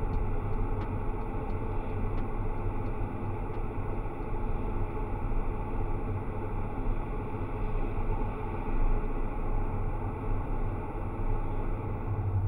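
Steady road and engine rumble heard inside a car cabin while driving at highway speed. A faint, rapid ticking runs under it for the first few seconds.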